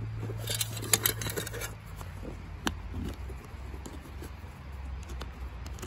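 Canvas rustling and scraping as a press-stud flap on a canvas bag is fumbled with one-handed, with a sharp click about a second in and another near the middle.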